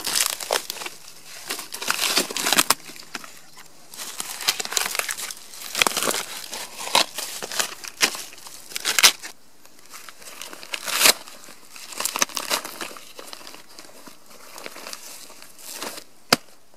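Papery bark of a dead birch being peeled and torn off the log by hand, with a knife working it loose where it sticks: crackling, tearing sounds in irregular bursts every second or so.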